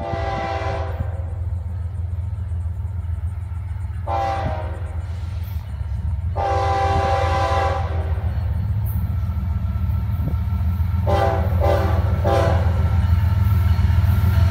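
Air horn of a Florida East Coast Railway freight train's lead locomotive sounding for a grade crossing: three longer blasts, then two short ones close together. Under it runs a low rumble of the approaching locomotives that grows louder as the train nears.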